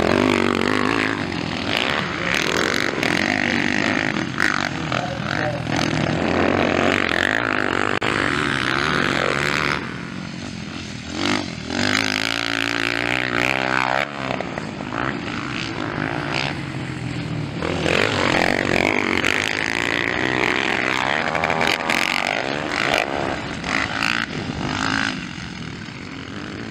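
Motocross dirt bike engines racing past, revving up and down as the riders accelerate and shift. About halfway through, one engine's pitch rises and falls clearly.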